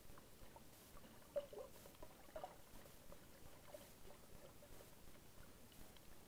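Faint, muffled underwater ambience heard with the camera submerged in its waterproof housing: a low hiss with scattered soft clicks, and a couple of short blips about one and a half and two and a half seconds in.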